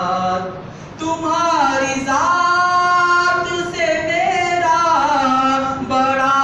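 A man singing an unaccompanied Urdu devotional manqabat to Gharib Nawaz into a microphone, drawing out long held notes with winding ornaments. The voice drops away briefly about half a second in and takes up the next phrase about a second in.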